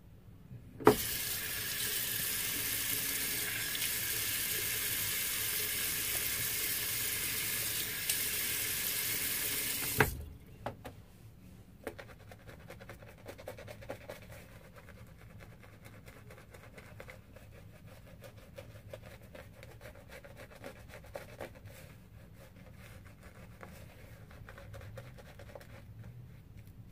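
Water tap running full for about nine seconds, turned on and off with a sharp clunk each time. Then a Semogue boar-bristle shaving brush scrubs lather onto the face with a soft, crackling bristle sound.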